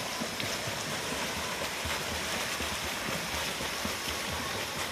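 Swimmers sprinting freestyle in a swimming pool: steady splashing and churning water from their arm strokes and kicks.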